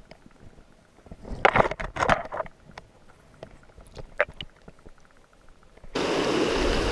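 Scattered rustles and knocks, then about six seconds in a steady rush of flowing stream water cuts in abruptly.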